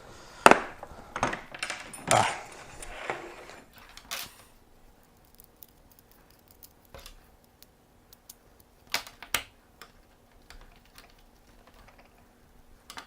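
Lansky sharpening-kit honing stones being popped out of their slots in the kit and handled. A quick run of sharp clicks and clatters over the first few seconds, then scattered light ticks and two knocks close together later on.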